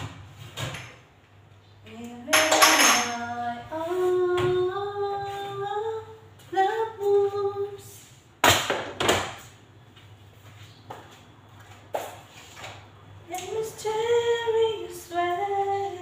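A woman singing two slow phrases of a song, with a few sharp knocks and clatters of kitchenware in between, the loudest about a third and halfway through.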